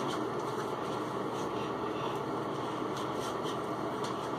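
Steady hum of a bathroom ventilation fan, with a few faint light ticks from the lotion bottle being handled and lotion rubbed on.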